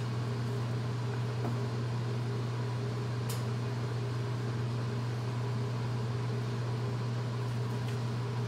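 Steady hum of a commercial kitchen exhaust hood fan, with one faint click about three seconds in.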